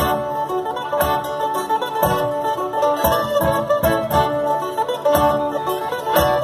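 Live acoustic string trio playing an upbeat tune: two guitars picking and strumming a steady beat while a violin carries the melody.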